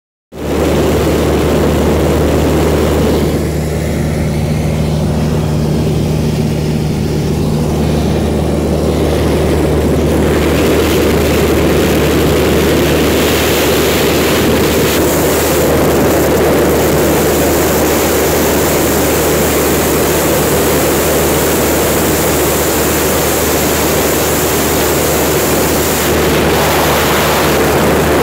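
Light aircraft's engine and propeller droning steadily, heard from inside the cabin: a low hum under a broad rushing noise.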